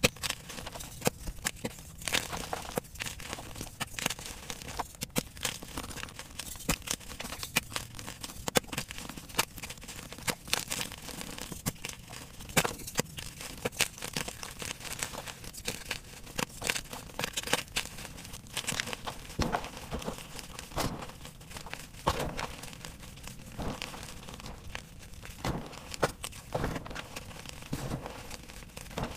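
Blocks of coloured gym chalk being crumbled and crushed between bare fingers: a dense, irregular run of dry crunches and crackles as the chalk breaks into pieces and powder.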